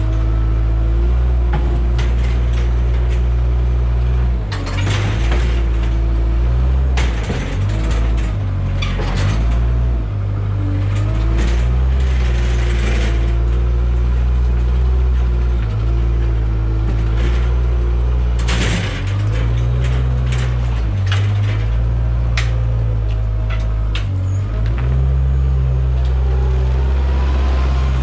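Weidemann compact loader's diesel engine running steadily, with a hydraulic whine that rises and falls as the boom works and sharp metal clanks and knocks several times. Near the end the engine pitch rises as the loader moves off.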